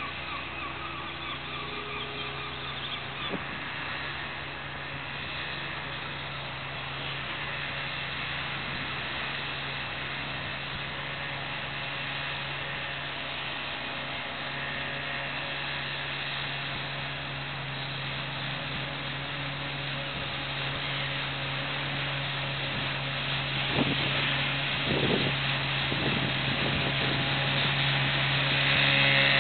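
Johnson 4 hp outboard motor on an inflatable dinghy running steadily under way, a constant engine drone that grows louder over the last several seconds as the boat comes toward the listener.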